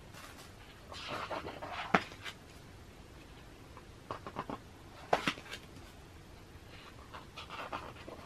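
Pages of a large photobook being turned by hand: paper sliding and rustling, with several sharp paper snaps, the loudest about two and five seconds in.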